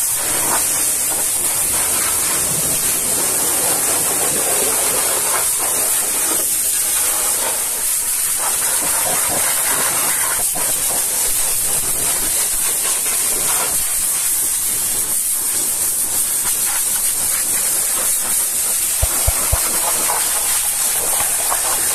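High-pressure washer jet spraying a truck engine bay: a steady, loud hiss of water striking metal, hoses and wiring. A few short knocks sound a little before the end.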